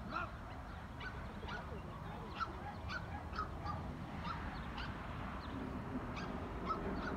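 A bird calling over and over in short, sharp calls, roughly two a second, against a steady low rumble.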